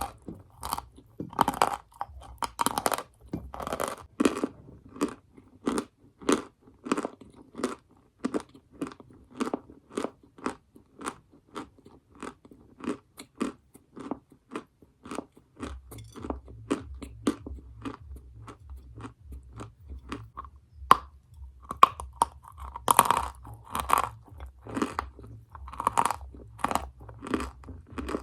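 Close-miked chewing and crunching of dry edible chalk-type mineral: a steady run of crisp crunches, two or three a second, with a few louder bites near the end.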